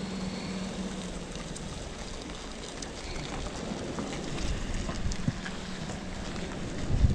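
Steady wind and sea noise on the microphone, with a low engine hum fading out about a second in. A low bump of handling noise comes near the end.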